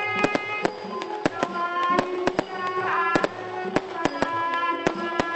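Fireworks going off in a rapid, irregular run of sharp bangs and pops over music with sustained pitched notes.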